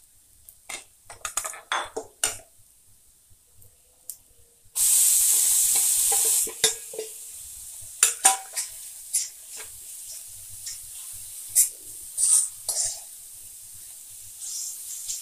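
A spoon stirring and clicking against a kadai of frying onion and coconut. About five seconds in, ginger-garlic-pepper paste goes into the hot oil and sizzles loudly for nearly two seconds, then a steady frying sizzle carries on under more scraping and clicks.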